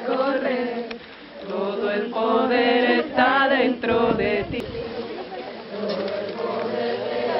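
A group of women singing a chant together, with a short dip about a second in; after about five seconds the singing gives way to a quieter blend of voices.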